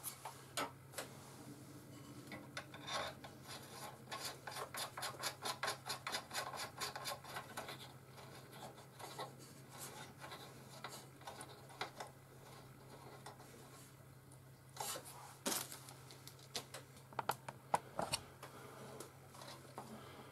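Light clicking and scraping of small metal parts handled at close range, as an Allen bolt is turned into a scroll saw's blade holder by hand. The clicks come in a quick series at first and are sparser later.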